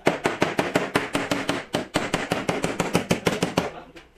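Rapid hammer taps on the sheet metal of a car's rear quarter panel as the dent is beaten out, about seven blows a second, stopping shortly before the end.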